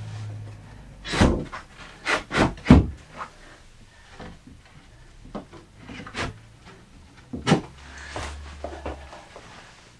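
A long timber shelf rail knocking and scraping against a wooden shelf frame as it is worked into place by hand. A cluster of loud knocks comes about a second to three seconds in, more follow near six and seven and a half seconds, and a last loud knock comes at the very end.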